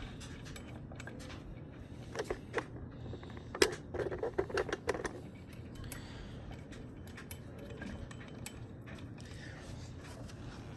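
Light metallic clicks and clinks of hand tools and bolts during work on a supercharger pulley hub: a few clicks about two seconds in, then a quick run of them about a second later, over a steady low hum.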